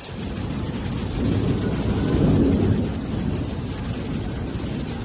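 Fast-flowing muddy floodwater rushing through a street: a steady low rumbling rush that swells from about a second in and eases a little near the three-second mark.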